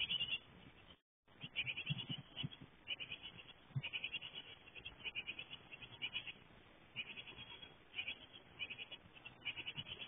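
A brood of Japanese tit nestlings, about 16 days old, giving begging calls: repeated bursts of rapid high chirping, with soft bumps of the chicks moving in the nest box. The sound drops out for a moment about a second in.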